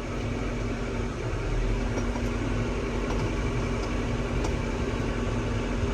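Tractor engine idling steadily, a constant low drone with a steady hum.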